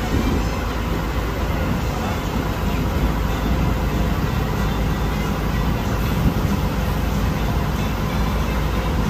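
Transit bus engine running as the bus rolls slowly past, a steady low-pitched drone.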